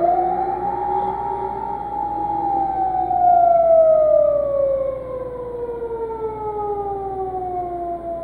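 An emergency vehicle's wailing siren, heard from inside a moving car. Its pitch rises sharply in the first second, holds, then falls slowly through the rest, over the car's steady road rumble.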